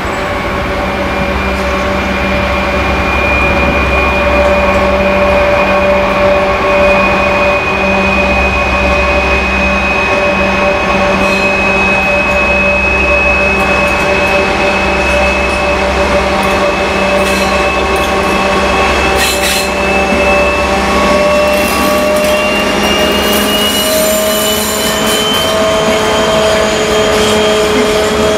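Soviet-built 'Ludmilla' diesel locomotive hauling a freight train past, its turbocharged V16 diesel running under load with a steady whine that climbs in pitch over the last few seconds. Scattered wheel clicks and squeals come in as the wagons roll by near the end.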